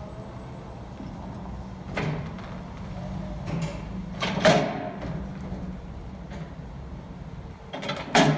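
Chevrolet Silverado pickup engine idling with a steady low rumble. Three short, loud sudden sounds break in: about two seconds in, the loudest about four and a half seconds in, and again near the end.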